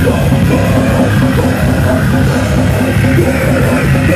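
A crust punk band playing live at full volume: distorted guitars, bass and drums in a dense, unbroken wall of sound, heard from within the crowd close to the stage.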